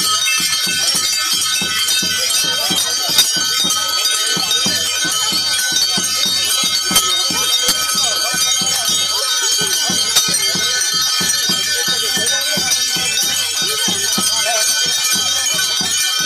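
Ritual music: bells and cymbals ringing and jingling without a break over a fast, even beat of knocks.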